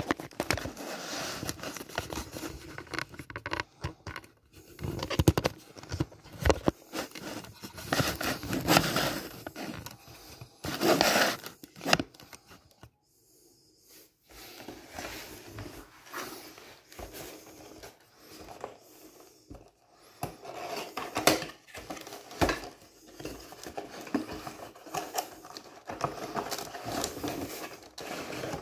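Cardboard model box and its clear plastic packaging being handled and opened: irregular rustling, scraping and light knocks, with a louder scrape about a third of the way in and a short pause near the middle.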